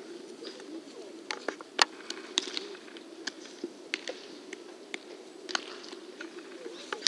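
Baseballs popping into leather gloves again and again at uneven intervals as several pairs play catch, some near and some farther off; the loudest pop comes just under two seconds in.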